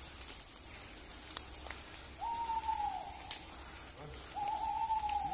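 An owl hooting twice: two steady hoots, each just under a second long and dropping slightly in pitch at the end, about two seconds apart, over a few light ticks.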